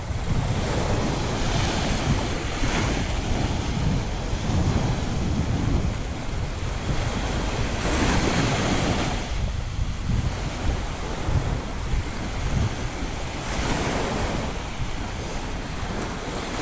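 Small sea waves breaking and washing up on a sandy shore, the surf swelling three times as waves break, with wind buffeting the microphone in a steady low rumble.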